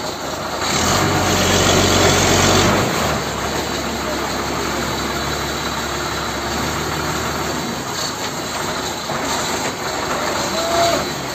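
Engine idling with a steady low hum, louder for about two seconds near the start and then running evenly.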